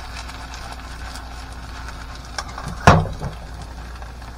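Potato pancake frying in a pan on a gas stove: a faint sizzle over a steady low hum. About three seconds in the pan knocks sharply against the burner grate as it is shifted, with a smaller knock half a second before.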